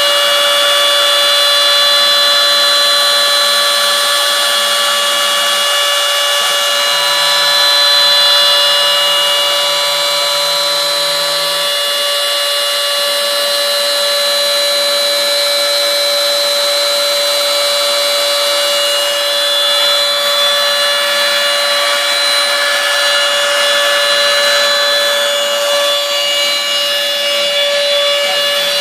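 CNC mill's router spindle running loudly and steadily as it cuts soft florist foam: a high whine of several steady tones over a hiss.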